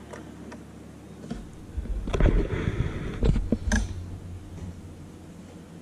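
Handling noise: a few light clicks and knocks of plastic 3D-printed figures being set down and posed on a desk, over a low rumble, between about one and a half and four seconds in. A faint steady hum lies under the rest.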